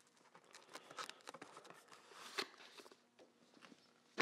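Faint handling noises: scattered light clicks and rustles as the ratchet's packaging is set aside on a rubber workbench mat, with a sharper click at the very end.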